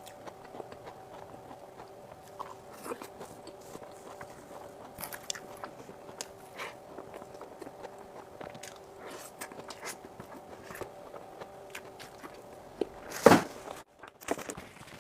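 Close-miked eating of whipped-cream cake: many small mouth and spoon clicks and chewing, over a faint steady hum. About thirteen seconds in comes one much louder sudden knock.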